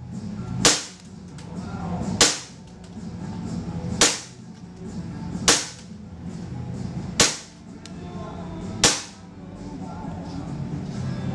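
WE Smith & Wesson M&P9 gas blowback airsoft pistol firing six single shots, each a sharp snap as the gas cycles the slide, about one and a half seconds apart.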